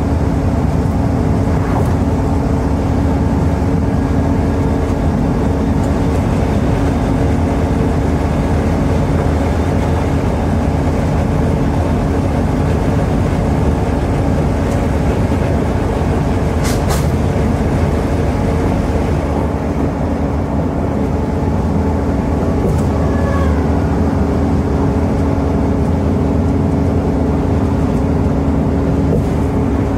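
Interior sound of a Scania N280UD double-decker bus on the move: its Scania DC09 five-cylinder diesel drones steadily at an even speed over tyre and road noise, with a brief high-pitched tick about seventeen seconds in.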